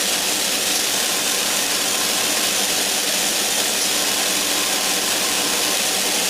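Airbrush spraying thinned lacquer paint: a steady hiss of air and paint, over a faint steady hum.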